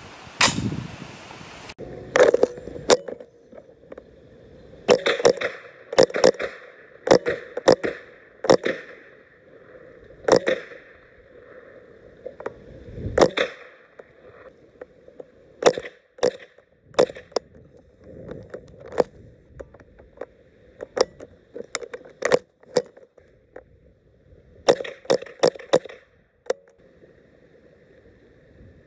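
A .22 rimfire rifle firing a long, irregular string of sharp shots, some singly and some in quick runs of two to four.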